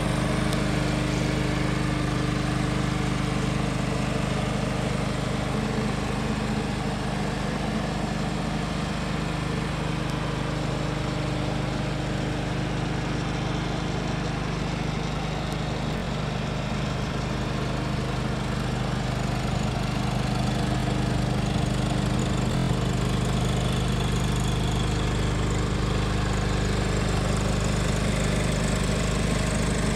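John Deere 425 garden tractor's overhead-valve V-twin engine idling steadily.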